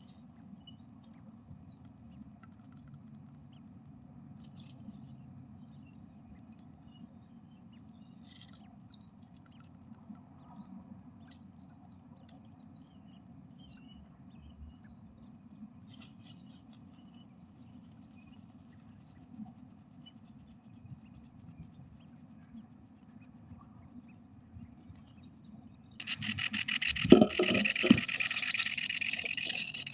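Great tit nestlings in a nest box giving faint, short high peeps now and then over a low steady hum. About 26 s in, with both parents at the nest, the chicks break into loud, rapid begging calls for food, mixed with a few soft thumps and rustles of the adults moving in the nest.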